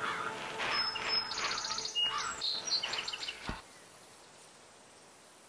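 Birds chirping and calling in quick short phrases. The calls cut off suddenly about three and a half seconds in, with a short low thud, leaving only faint hiss.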